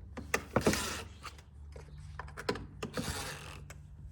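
Scattered clicks and knocks with two short scraping rubs, from parts of a retractable window screen cassette and hand tools being handled during installation.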